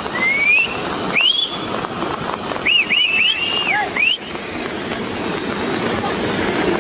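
Lahar, a grey volcanic mudflow of water and debris, rushing down a channel with a steady, dense rushing noise. High whistle-like glides rise and fall over it about a second in and again around three to four seconds in.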